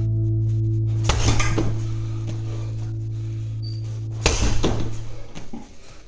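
Background music holding a low sustained chord that fades out about five seconds in, with two sharp hits about three seconds apart.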